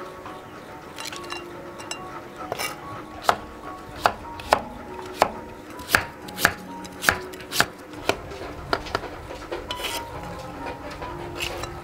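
Chinese cleaver slicing a cucumber on a thick wooden chopping block. The blade knocks sharply on the wood about once every half second through the middle, with lighter, quicker cuts near the end.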